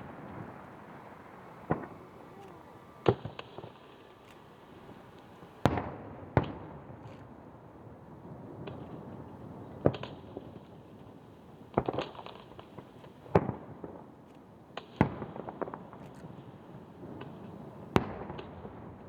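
Fireworks bursting over the sea: about ten sharp bangs at uneven intervals, each with an echoing tail, over a steady background rumble of distant bursts and crowd.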